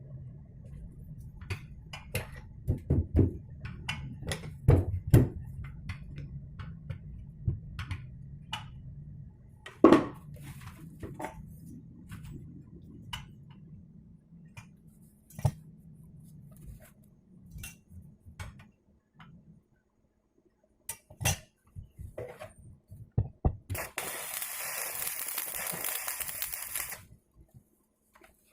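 Metal parts and hand tools clinking, tapping and knocking at irregular intervals during metal fabrication, over a low hum that dies away about two-thirds of the way through. Near the end, a steady hiss lasts about three seconds.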